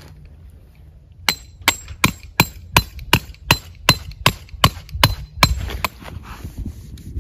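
Peg hammer driving a tent peg into the ground: about a dozen sharp, ringing strikes, roughly three a second, ending about two-thirds of the way through.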